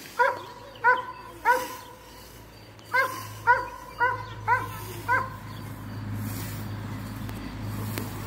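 A dog barking: three barks, a short pause, then five more in quick succession.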